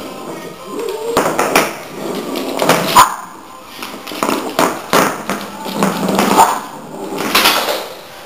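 Bichon frisé playing with a plastic bottle on a parquet floor: irregular bursts of crinkling and clattering as the bottle is pushed and knocked about.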